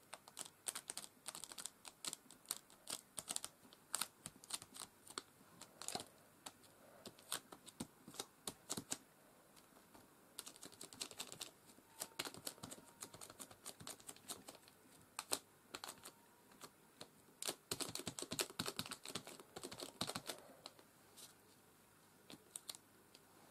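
Light, quick taps and clicks of small craft tools dabbed and pressed against a card on a worktable, coming in irregular clusters.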